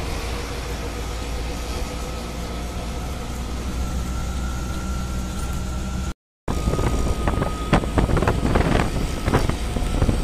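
Auto-rickshaw ride heard from inside the open cabin: a steady low rumble of the small engine and road noise, with faint whining tones. It briefly drops out about six seconds in, and after that frequent sharp rattles sound over the rumble.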